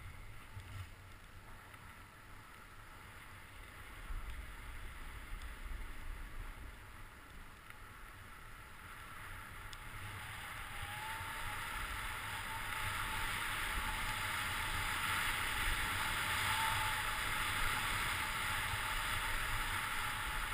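Steady hiss of sliding down a groomed snow track, with wind rumbling on the microphone, growing louder from about halfway through as speed builds.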